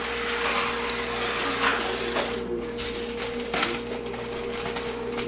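Plastic zip-top freezer bags crinkling and rustling in short irregular bursts as hands fold and press them flat. Under it runs a steady hum with a constant tone.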